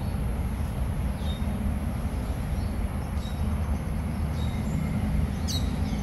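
Steady low outdoor rumble with a few short, high, falling bird chirps, the clearest near the end.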